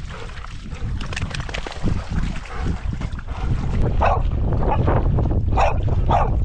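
Wind buffeting the microphone while dogs wade and splash through shallow lake water. From about four seconds in, a dog barks repeatedly, about twice a second.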